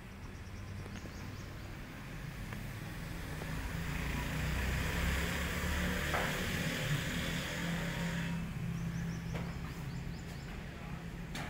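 Outdoor background noise like passing road traffic: a rush that swells over a few seconds and stops abruptly about eight seconds in, over a steady low hum.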